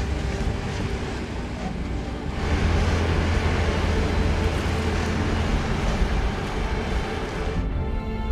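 Jeep driving up a dirt and rock trail: engine and tyre noise, getting louder about two and a half seconds in as it climbs. Near the end the road noise drops away and music takes over.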